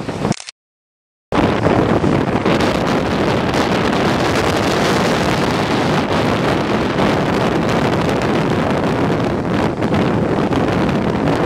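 Steady, loud roar of a jet airliner's engines as it rolls out down the runway after landing, mixed with wind buffeting the microphone. The sound cuts out completely for about a second, roughly half a second in, then resumes.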